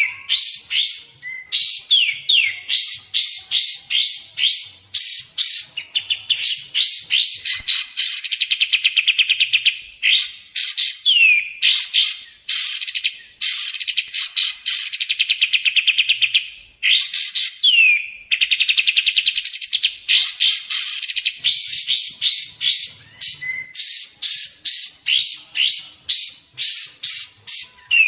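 Kapas tembak bird calling, a lure call: a fast run of sharp, high chirps, several a second, broken now and then by buzzy trills lasting a second or two.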